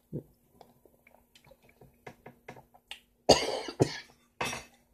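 Small wet mouth clicks from chewing juicy honeydew melon, then two coughs, about three and a half and four and a half seconds in.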